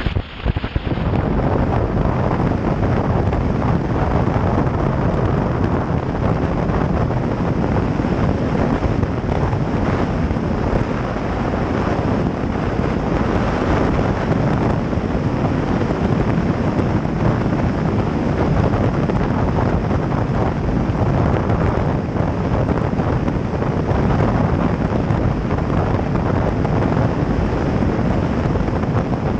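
Steady rush of wind buffeting a GoPro mounted outside a vehicle driving across a dry lakebed, with the vehicle's running noise underneath.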